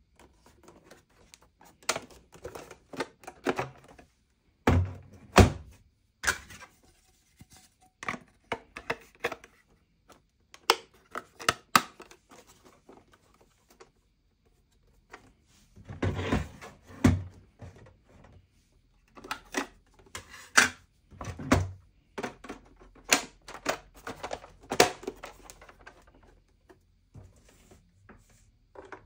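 Irregular clicks, taps and knocks of objects being handled on a hard surface. They come in clusters, with the loudest thuds about five seconds in and again around sixteen to seventeen seconds, and a brief pause near fourteen seconds.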